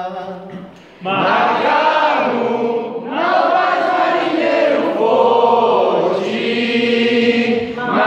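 A group of mixed voices singing a capoeira chorus in unison, unaccompanied, answering the leader's solo line. The group comes in loudly about a second in and sings in phrases.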